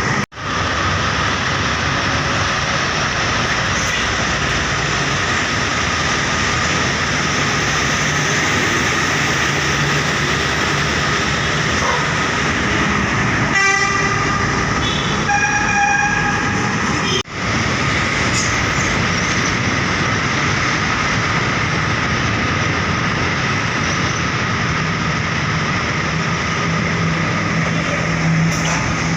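Steady noise of heavy road traffic. Just before halfway a bus horn gives a quick run of short blasts, then one held note of about a second and a half. The sound cuts out for an instant near the start and again a little past halfway.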